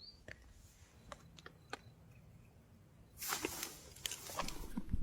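Quiet outdoor stillness: a short high chirp at the start, a few faint clicks, then a brief rustle about three seconds in and more rustling near the end.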